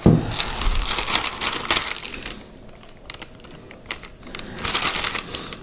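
Rustling and scratching of a Hollytex spun-polyester sheet and a wet paper comic cover being handled and smoothed by hand on a cutting mat. It opens with a soft knock, goes on in irregular scratchy spells for about two seconds, eases off, and picks up again briefly near the end.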